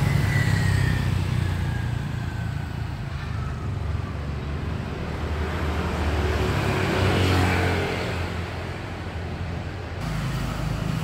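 Motor vehicle noise: a steady low engine hum with road traffic passing, one vehicle sweeping past about seven seconds in.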